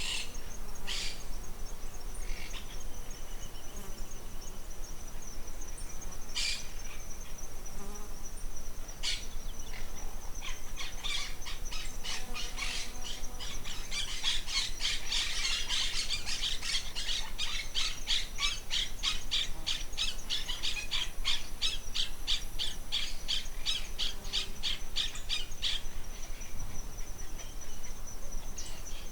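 Outdoor bird and insect chorus: a steady, thin, high-pitched insect buzz under scattered bird chirps. About ten seconds in, a run of quick repeated calls, about three a second, starts and goes on for some fifteen seconds.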